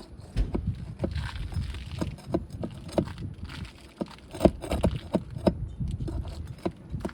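A pry bar working nails loose under asphalt roof shingles: irregular metal clicks, taps and knocks, several to a second, with a cluster of louder knocks about four and a half seconds in.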